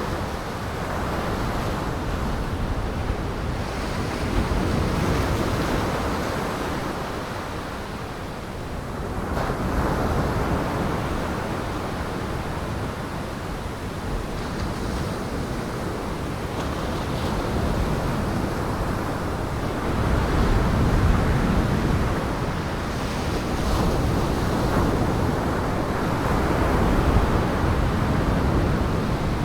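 Storm surf and wind on Lake Michigan: waves breaking in a continuous rush that swells and eases every few seconds, with no distinct tones.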